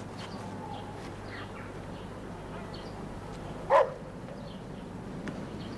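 A dog barks once, about four seconds in, over faint bird chirps and a steady background hiss.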